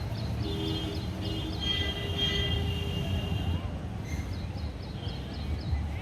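Background street noise: a steady low rumble, with a held pitched tone for about three seconds and runs of quick, high, repeated chirps.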